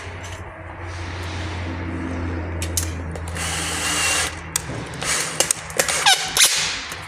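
Cordless drill-driver running steadily for about four seconds, driving a screw into galvanized steel drywall track. It is followed by a run of sharp clicks and metal knocks near the end.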